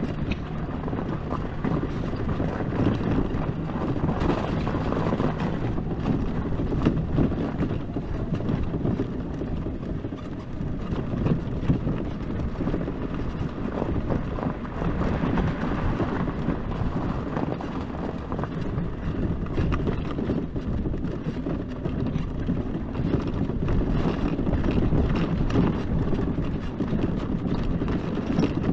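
HECHT 59399 ARMY electric ATV travelling over rough ground: a steady rumble of tyres and suspension with irregular knocks and rattles, and wind buffeting the microphone.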